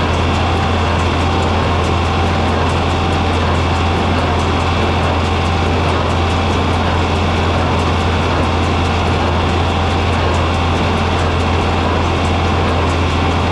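John Deere 4020 tractor's six-cylinder engine running at a steady speed while baling hay: a constant low drone that holds level throughout.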